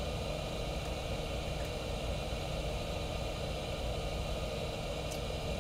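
Steady workbench background: a constant low machine-like hum with an even hiss, and a faint small tick about five seconds in.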